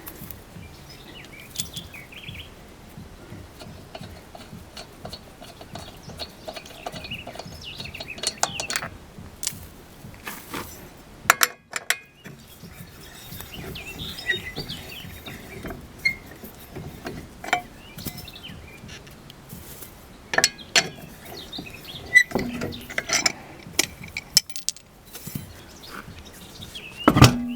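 Scattered metallic clicks, clinks and knocks as the wheel bolts are spun out by hand and a Renault Logan's front wheel is pulled off its hub. There are louder knocks about ten, twenty and twenty-seven seconds in.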